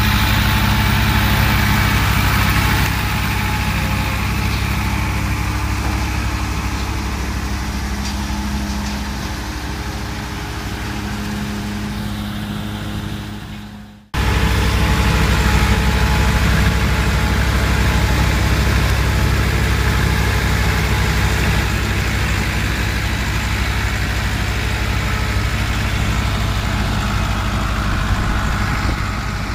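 Massey Ferguson 385 tractor's diesel engine running steadily while driving a straw chopper through its PTO: a low engine note with a broad rushing noise from the machine above it. The sound cuts out abruptly about halfway through and comes straight back.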